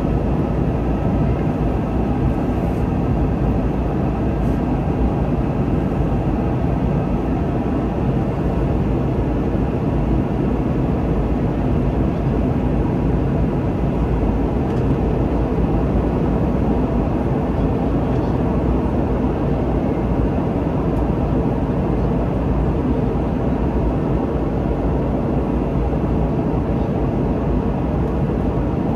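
Steady cabin noise of a Boeing 717 in flight: its twin rear-mounted Rolls-Royce BR715 turbofan engines and airflow, heard from inside the passenger cabin as an even, deep rumble.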